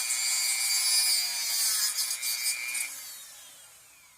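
Rotary tool with a cutting blade slicing through a plastic wheel stem, a high whine with grinding. About three seconds in the tool is switched off and its whine falls in pitch as it spins down and fades.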